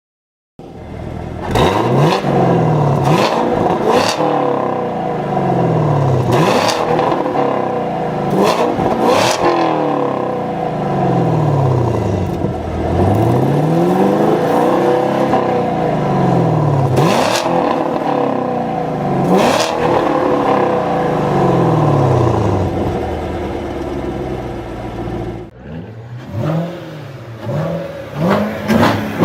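Chevrolet Camaro engine revving again and again, its pitch climbing and dropping about every two to three seconds. Near the end it cuts to a Chevrolet Corvette blipping its throttle in short, quick revs.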